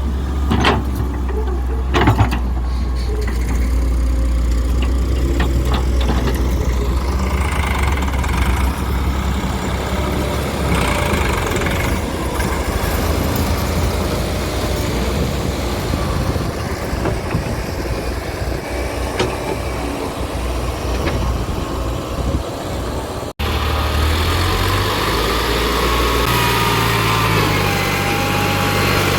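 Heavy diesel engine of a JCB backhoe loader running steadily while it digs and loads mud, with a few sharp knocks in the first couple of seconds. About 23 seconds in the sound changes abruptly, and a whine that wavers up and down in pitch rides over the engine.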